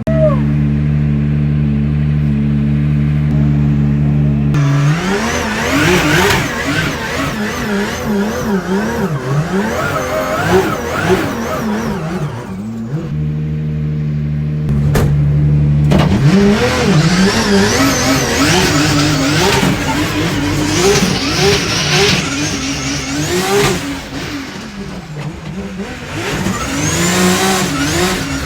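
Drift car engine revving up and down again and again, over a broad hiss of tyre noise. It holds a steady pitch for a few seconds at the start and again about halfway through.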